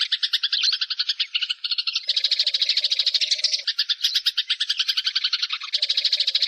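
Eurasian tree sparrows chirping rapidly and continuously, several birds at once, with a lower note joining in about two seconds in and again near the end.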